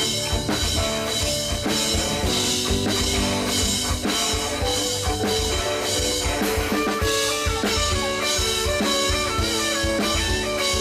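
Pop-rock band playing an instrumental break: drum kit keeping a steady beat under bass and guitar, with no singing.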